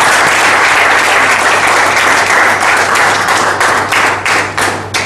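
Audience applause, a dense run of many hands clapping that thins to a few scattered claps and stops near the end.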